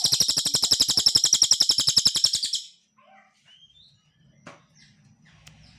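Cililin songbird giving a loud, rapid high trill of evenly repeated notes, about fourteen a second, which stops abruptly about two and a half seconds in. Faint scattered chirps follow.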